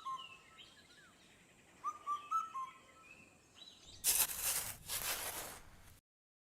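A bird calling: a quick run of three or four clear whistled notes, then a falling note, heard twice about two and a half seconds apart. About four seconds in, a loud hiss takes over for a second and a half, and the sound cuts out abruptly shortly before the end.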